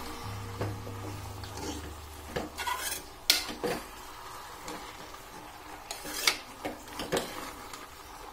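Steel spoon stirring and scraping field beans (avarekalu) with onion and tomato frying in oil in an aluminium pressure cooker, with a faint sizzle. Now and then the spoon clinks sharply against the pot, loudest about three seconds in and again about six seconds in.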